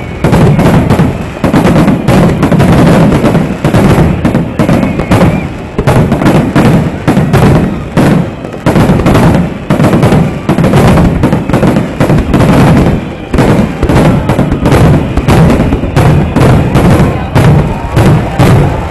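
Aerial fireworks shells bursting in a rapid, continuous barrage, several booms a second with crackle overlapping and almost no pause between them.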